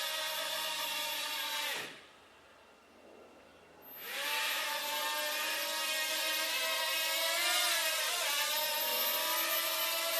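Hubsan 108 micro quadcopter's small electric motors whining at a steady pitch, cutting out about two seconds in. After a couple of seconds of near silence they spin back up about four seconds in and whine on, the pitch wavering as the drone flies.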